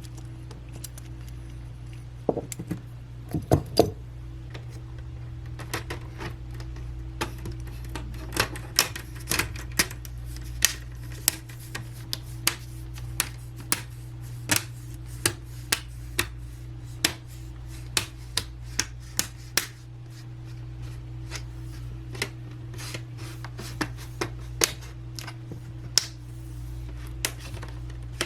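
Irregular sharp clicks and clacks of hand work on a laptop's repaired hinge and plastic housing, with the clamps coming off and parts and tools being handled, over a steady low hum.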